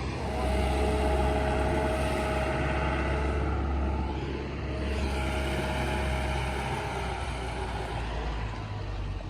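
Diesel engine of a heavy vehicle running close by: a low rumble with a steady whine above it. It eases off about four seconds in, picks up again, and fades near the end.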